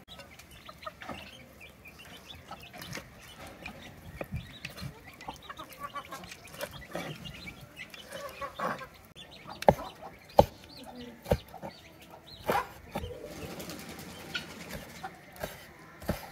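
Chickens clucking at intervals. Scattered clicks and a few sharp knocks, the loudest of them in the middle of the clip.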